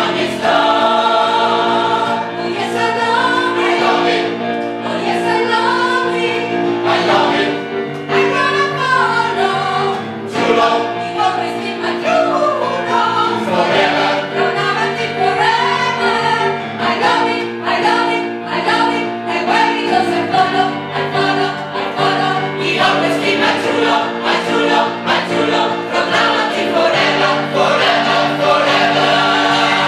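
Gospel choir singing in harmony: held chords with a melody line moving over them.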